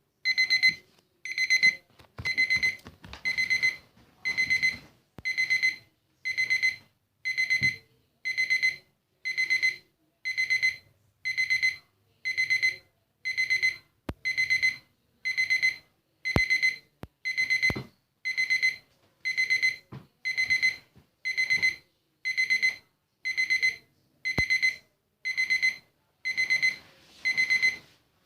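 Digital kitchen timer alarm beeping: bursts of quick, high-pitched beeps that repeat steadily about once a second.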